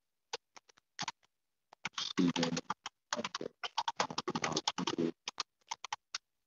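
Typing on a computer keyboard: a few separate keystrokes, then fast runs of key clicks with short pauses between them.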